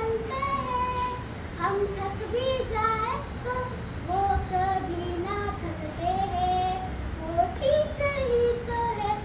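A young girl singing alone without accompaniment, a melodic line with long held notes.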